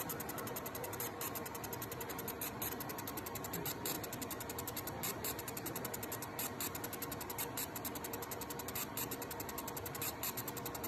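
Laser marking machine engraving graduation marks around a turning red cylinder on a rotary attachment: a rapid, even ticking, several clicks a second, over a steady hum.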